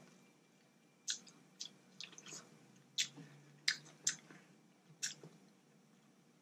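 A person chewing food close to the microphone, with a string of sharp wet mouth smacks, about eight of them.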